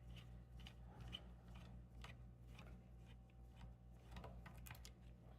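Faint, scattered clicks of a small Torx screwdriver turning a screw out of an Xbox Series S casing, over a low steady hum.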